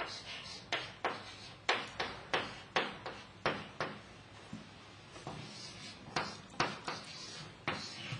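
Chalk writing on a chalkboard: a run of sharp taps and short scrapes as each letter and digit is stroked, a few a second, with a pause of about a second near the middle.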